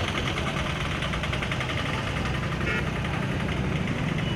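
A motor vehicle's engine running steadily close by, with a fast, even rhythm.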